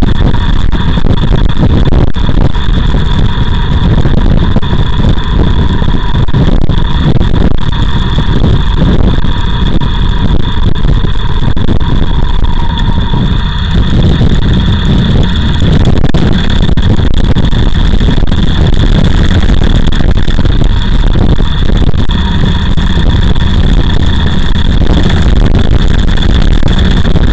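Motorcycle being ridden along a town road: the engine running under a dense, loud rumble of wind and road noise on the bike-mounted camera's microphone, with a thin steady high whine. The noise eases briefly about halfway through, as the bike goes through a roundabout, then picks up again.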